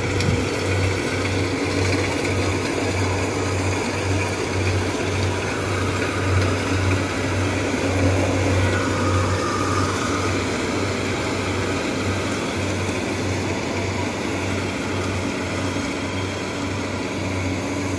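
Rice combine harvester running steadily while it cuts and threshes ripe rice, a continuous mechanical drone with a low, evenly pulsing throb.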